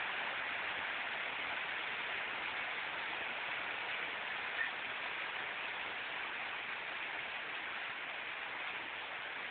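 Heavy rain falling steadily onto a concrete courtyard and its plants, an even downpour with one sharper tap about halfway through.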